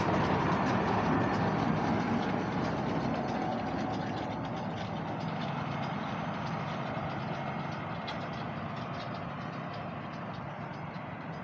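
International 886 tractor's engine running steadily, its sound slowly fading as the tractor moves away.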